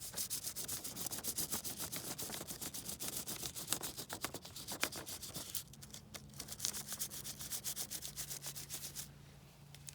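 Crayon rubbed rapidly back and forth across paper laid on the sawn face of a tree stump, a fast scratchy stroking of several strokes a second that thins out and grows fainter about halfway through.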